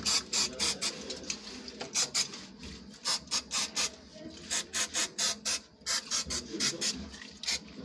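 Aerosol can of solvent cleaner being shaken hard before spraying, rattling in quick sharp strokes about four a second, with a couple of short breaks.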